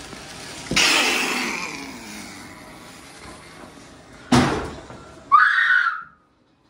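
A sudden loud bang that rings out and fades over about a second and a half, a second sharp bang about four seconds in, then a short high-pitched cry just after, before the sound cuts off abruptly.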